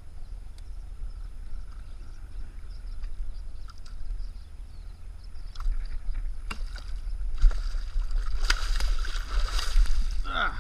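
A hooked catfish thrashing at the surface on a catfishing rig set beside the kayak, splashing loudly for the last few seconds, with a brief falling squeal near the end. Before that there is only a low steady rumble and a few light clicks.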